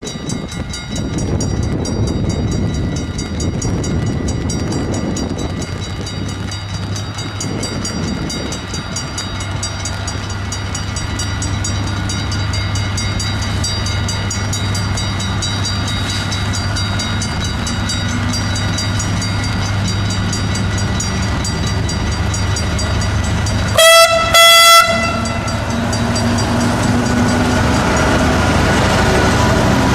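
Class 66 diesel locomotive's EMD two-stroke engine running with a steady hum and a high whine, with wind gusting on the microphone in the first several seconds. About 24 seconds in, the locomotive's horn sounds two short, loud blasts, and the engine then grows louder.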